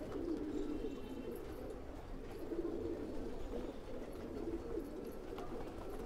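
Domestic pigeons in a loft cooing, several low coos overlapping into a steady, wavering murmur.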